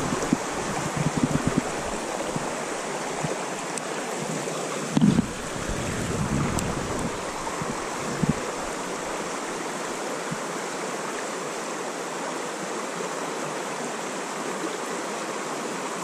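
Mountain trout stream running over rocks, a steady rushing of water, with a few short low rumbles on the microphone near the start and about five seconds in.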